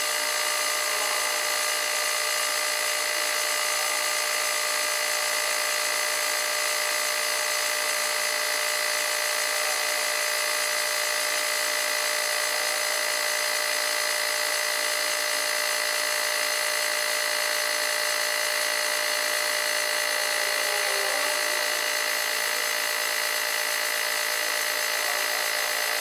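Half-horsepower air compressor pump driven by a 1 hp electric motor, running steadily with a high whine.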